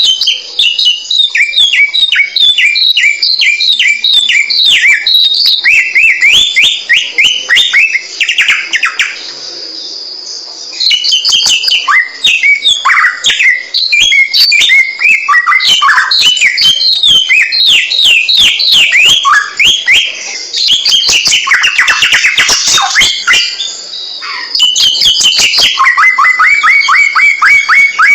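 Samyong songbird singing a fast, continuous chatter of short downward-sliding chirps. The song eases off for a couple of seconds about nine seconds in, then resumes just as densely.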